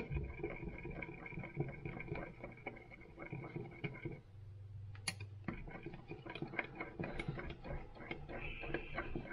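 A stir knife scraping and clicking around the inside of a cup as red colorant is mixed into heated liquid soft-plastic (plastisol): a quick, uneven run of small clicks and scrapes. A faint steady high tone runs under the first few seconds and comes back near the end, with a brief low hum in the middle.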